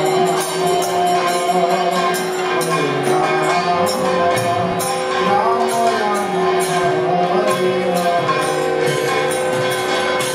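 Devotional kirtan music: voices chanting to the steady beat of small metal hand cymbals, over a sustained droning tone.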